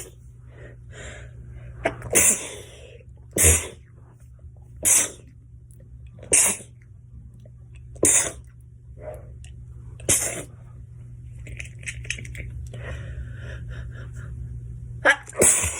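A young woman's sneezing fit: a run of about eight sharp sneezes, one every second or two, then a pause of a few seconds before two more in quick succession near the end.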